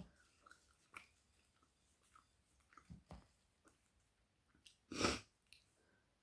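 Close-miked chewing of spiced flatbread: soft, scattered mouth clicks and smacks, with one louder, longer noisy burst about five seconds in.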